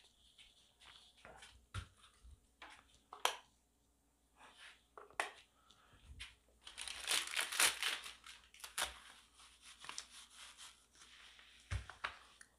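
A plastic water bottle being handled: scattered clicks and knocks, then about two seconds of crinkling and tearing some seven seconds in, as the plastic label is peeled off the bottle.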